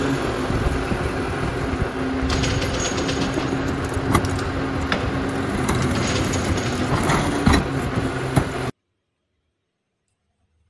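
Rear-loading garbage truck running at the curb: a steady engine hum under loud mechanical noise, with a few sharp metallic clanks and knocks from the bin lifter. The sound cuts off suddenly about three quarters of the way through.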